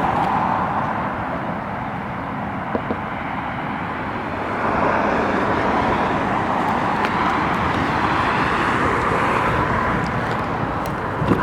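Steady road traffic noise, growing a little louder about four seconds in, with a few faint clicks.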